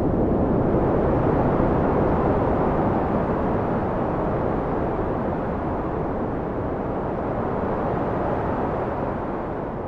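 Wind blowing as a steady low rush, easing off a little over the second half.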